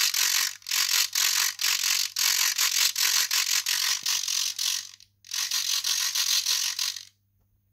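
Aileron servos in a balsa model Spitfire's wing running back and forth under radio control, a quite noisy fast gear chatter in bursts with brief pauses, stopping about seven seconds in. The servos run unloaded, not yet linked to the ailerons by push rods.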